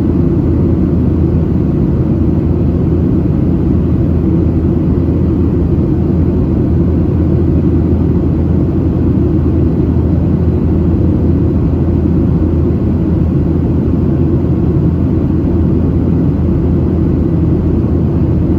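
Steady cabin rumble of a Boeing 737-700 in flight, the low drone of its CFM56-7B jet engines and airflow heard from inside the passenger cabin.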